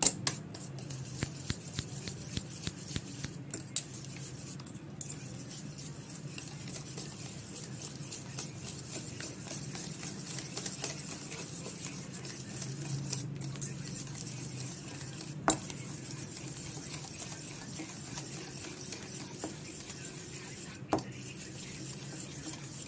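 Wire whisk beating eggs in a stainless steel bowl: rapid, continuous clinking and scraping of the wires against the metal bowl. Twice in the second half a sharper knock stands out.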